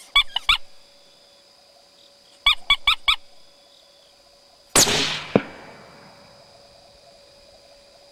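Short high yelping calls in two quick bursts, three and then four, followed almost five seconds in by a single loud rifle shot with a trailing echo and a second sharp crack about half a second after it.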